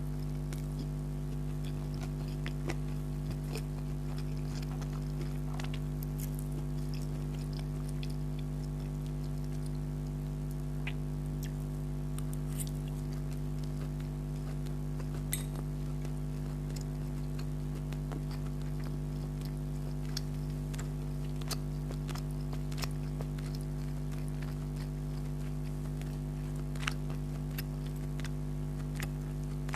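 A person chewing spicy chicken spaghetti, with scattered small wet clicks of the mouth. A loud, steady low hum runs underneath.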